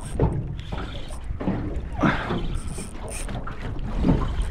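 Water sloshing and lapping against the hull of an aluminium fishing boat, with a few separate splashes and wind buffeting the microphone.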